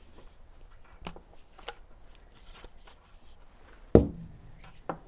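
Hands taking apart an Amazon Echo (2nd generation) smart speaker: faint rustles and light clicks as the fabric sleeve is slid off the plastic speaker body. About four seconds in there is one sharp knock as a part is set down on the wooden workbench, and a smaller one just before the end.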